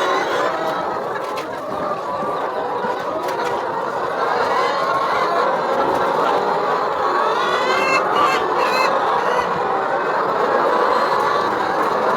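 A large flock of chickens clucking and calling all at once in a steady, dense din, with one clearer rising call about two-thirds of the way through.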